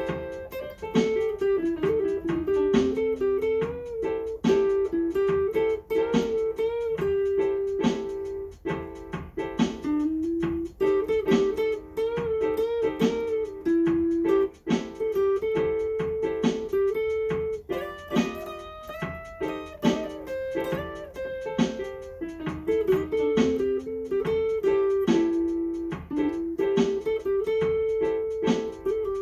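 Electric guitar playing an unaccompanied single-note lead line: a steady stream of picked notes, with a few notes bent up in pitch.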